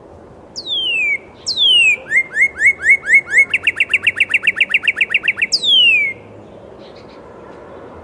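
Northern cardinal singing one song: two long down-slurred whistles, then a run of quick rising notes that speeds up and steps higher in pitch, then a final down-slurred whistle.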